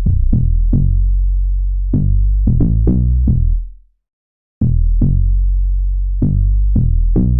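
Electronic beat played back from FL Studio: short, fading synth notes over a deep bass. It cuts out for under a second about halfway through, then starts again.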